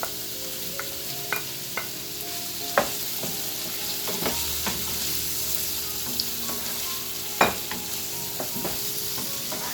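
Chopped capsicum, onion and chili sizzling in a hot frying pan as they are stirred, with the stirring utensil knocking against the pan now and then; the sharpest knocks come about three seconds in and about seven and a half seconds in.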